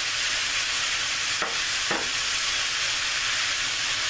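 Ground beef, Italian sausage and diced onion sizzling steadily in a hot skillet while being stirred with a wooden spoon. Two light clicks come about halfway through.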